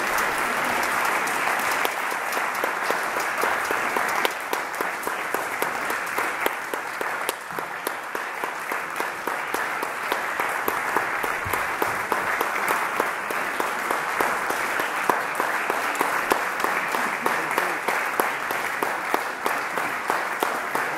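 Concert audience applauding: many hands clapping in a steady, dense patter.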